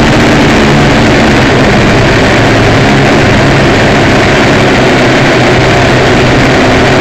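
Small electric motors and propellers of a radio-controlled aircraft running steadily, heard close through its onboard camera, with a buzz of several steady tones under a loud rush of air and wind noise.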